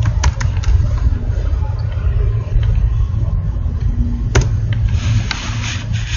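A steady low background rumble, with a few computer keyboard key clicks in the first second and a single sharp click about four seconds in.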